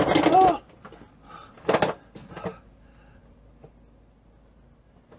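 A sharp knock about two seconds in and a smaller one just after, from handling parts and tools while refitting a Land Rover Discovery's rear coil spring, then quiet fiddling. A voice trails off at the very start.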